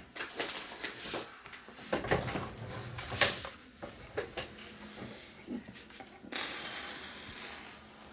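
Handling noises from a Vanguard Up-Rise 28 bag being unpacked and examined: fabric rustling with soft knocks and clicks, the loudest about three seconds in. About six seconds in comes a longer steady rustle that fades away.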